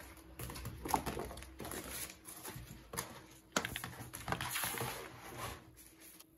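Sheets of printed paper being handled and shuffled on a desk: uneven rustling with a few sharp taps as pages are lifted and set down.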